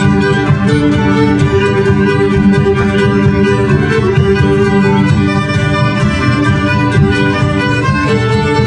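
Folk band playing an instrumental tune on accordion and fiddle, with a steady beat.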